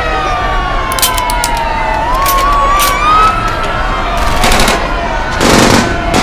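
Layered sound-effects mix of mayhem: a siren-like wail that slowly falls and then climbs again. Sharp cracks like gunfire or firecrackers come in a cluster about a second in and again a couple of seconds later, and louder noisy bursts come near the end.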